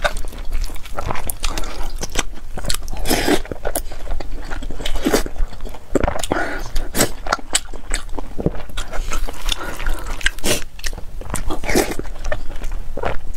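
Close-miked chewing and biting of braised pork belly and rice, a run of irregular sharp clicks and smacks from the mouth.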